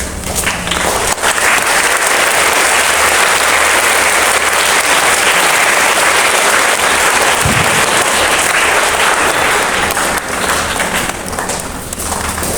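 Audience at a school assembly applauding with dense clapping. It builds about a second in and thins out near the end.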